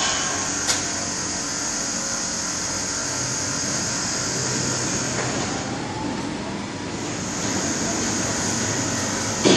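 SC200GZ rack-and-pinion construction hoist running as its cage climbs the mast: a steady mechanical drive noise with low tones, and a whine that rises in pitch about halfway through. A sharp click about a second in and a loud clank at the very end.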